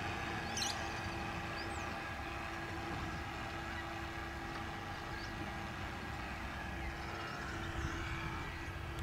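Radio-controlled model cabin cruiser's motor running steadily as the boat cruises, a low even hum, with a couple of short high chirps about half a second in.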